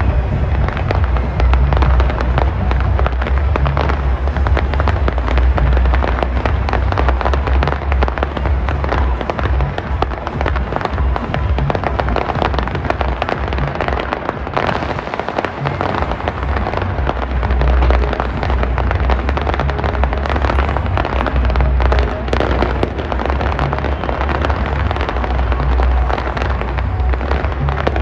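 Aerial fireworks going off in a dense, continuous barrage of bangs and crackling, with deep booms underneath.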